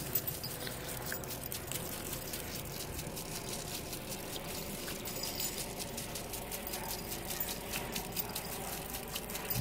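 Water from a garden hose spraying onto a grass lawn: a steady rush with a fast crackle of pattering drops.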